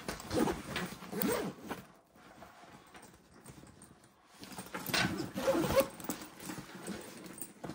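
Backpack zippers being run open and shut in quick strokes, a few in the first two seconds, then a pause, then more from about five seconds in.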